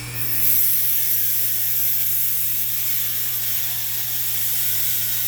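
Dremel-type rotary tool with a cutting wheel grinding into metal: a steady, loud, high hiss over the tool's motor whine.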